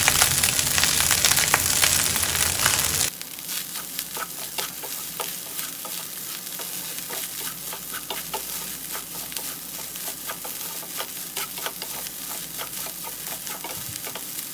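Fried rice sizzling in a hot frying pan, loud and dense for about three seconds, then dropping suddenly to a quieter sizzle. Through it the rice is stirred and tossed, giving many quick, irregular scraping clicks.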